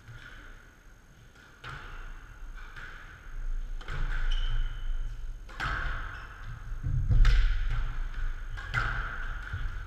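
Squash rally: the ball is struck by rackets and hits the court walls in a series of sharp knocks roughly every one and a half seconds, with thudding footwork on the court floor underneath.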